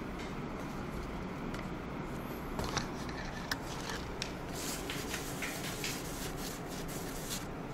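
Paper tissue rustling and rubbing in many short strokes as old thermal paste is wiped off the CPU in an open desktop PC, over a steady background hum. The strokes start a few seconds in and stop shortly before the end.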